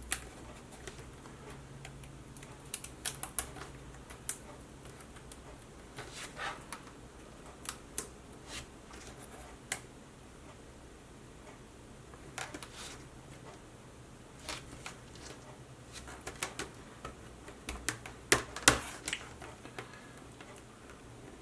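Irregular light clicks and taps of small parts of an LED light strip being handled and pressed into place, with a steady low hum underneath.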